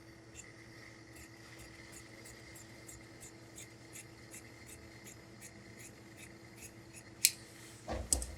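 Tailor's shears cutting through coat lining fabric in a steady run of snips, about three a second. Near the end comes a sharp click, then a heavier knock.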